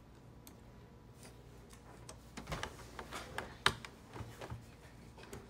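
Screwdriver working the screws that hold an Epson 8550's print head, giving scattered light clicks and ticks, the sharpest a little past halfway.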